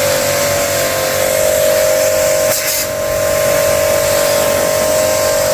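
AGARO Supreme 1800 W electric pressure washer running: the pump motor's steady whine under the hiss of the high-pressure water jet spraying.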